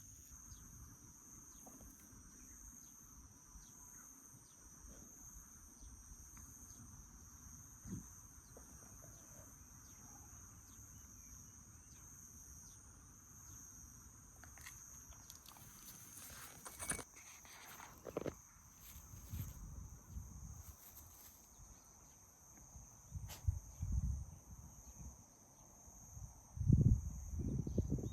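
Quiet outdoor walk: footsteps and low thumps that grow louder in the last few seconds, over a steady high-pitched whine.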